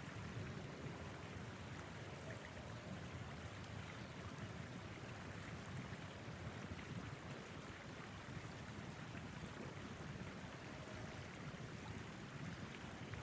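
Steady rushing wind with an uneven low rumble.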